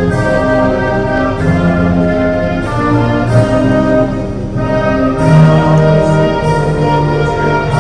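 Orchestral music with strings and brass playing slow, long held notes.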